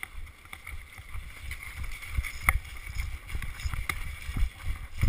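Footsteps and gear jostling against a body-worn camera as a player moves off: irregular low thumps a few times a second, with occasional sharp clicks, the loudest about two and a half seconds in.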